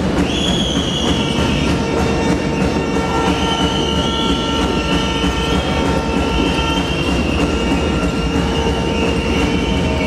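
Loud, steady crowd noise from a basketball arena during play, with a high wavering tone that comes in about a second in and runs on through it.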